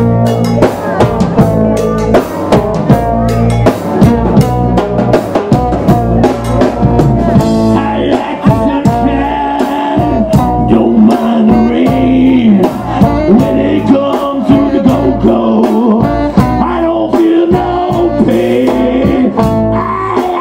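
Live band playing: a trombone plays the lead line in held and moving notes over a drum kit, electric bass and percussion, with fast, steady drum hits.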